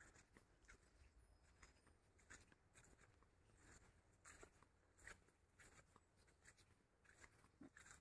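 Near silence, with faint crunching footsteps on a sandy, leaf-strewn path, roughly one or two steps a second.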